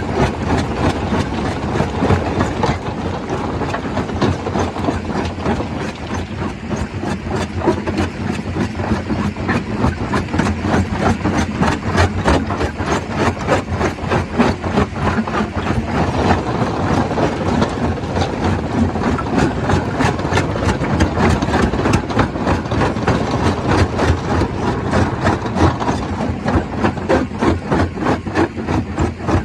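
Stone crusher running, crushing rock with a steady, rapid run of knocks over a continuous grinding rumble.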